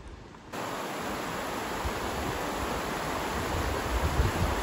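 A steady, even rushing noise that starts abruptly about half a second in, with an uneven low rumble underneath.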